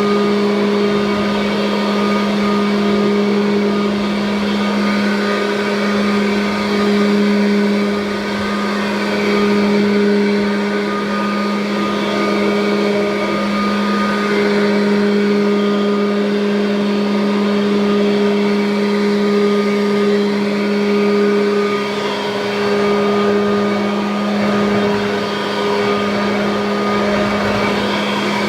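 A 1984 Kirby Heritage upright vacuum cleaner running steadily: a loud, even motor hum with a higher whine above it and the rush of suction air.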